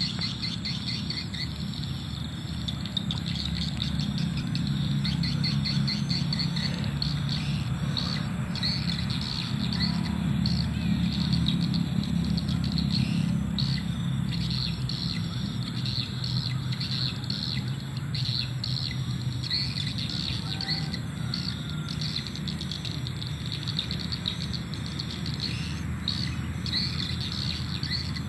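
Swiftlet calls around a swiftlet house: rapid high chirping, repeated over and over, above a steady low rumble.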